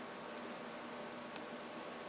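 Steady low hiss with a faint hum, and one faint, sharp tick a little past halfway through.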